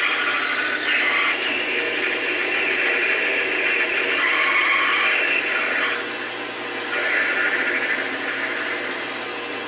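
Metal lathe running while a cutting tool turns a metal bar, a steady machine hum under a scraping cutting noise that swells and eases in stretches of a second or two.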